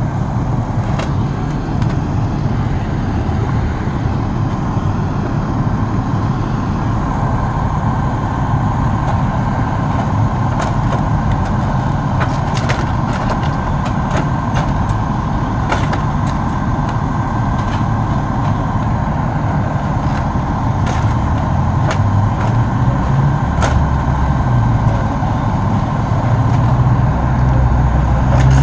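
Fire engine's diesel engine running steadily, a low rumble with a faint steady tone above it and scattered sharp clicks and knocks. The rumble grows a little louder near the end.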